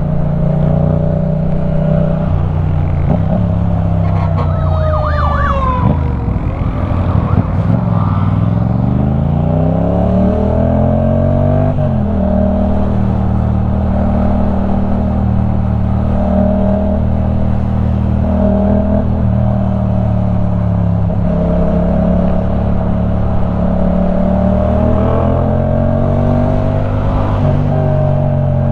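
Yamaha MT-07 (2015) parallel-twin engine breathing through a LeoVince One Evo full exhaust system while riding. Its pitch falls as it slows about five seconds in, then rises as it pulls away, breaks at a gear change about twelve seconds in, and settles into a steady cruise with small throttle swells.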